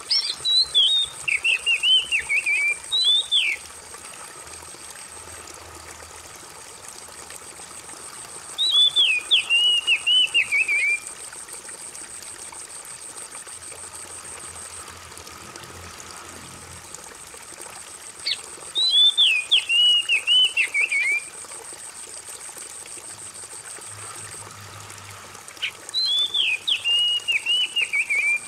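Water trickling steadily while an oriental magpie-robin sings four bursts of quick descending whistled phrases, each about three seconds long.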